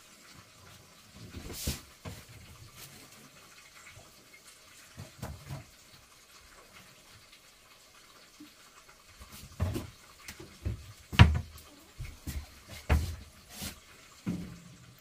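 Kitchen items such as seasoning jars being handled and set down on a worktop: a quiet stretch, then a run of separate dull knocks and thumps in the second half, one of them sharper and louder than the rest.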